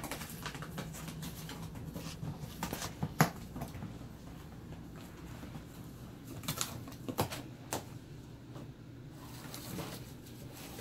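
A puppy biting and tearing at a cardboard box: irregular crackles and snaps of cardboard, the sharpest about three seconds in and a quick cluster of them a little past the middle.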